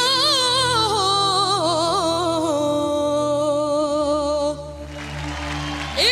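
A solo singer holds a long note with a strong, wavering vibrato over the instrumental backing of a Hindi film song. The voice breaks off about four and a half seconds in while the accompaniment carries on.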